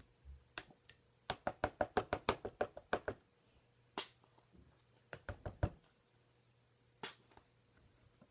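Homemade glue slime being kneaded by hand to work in yellow colouring, giving a quick run of clicks and pops, then a few louder single snaps.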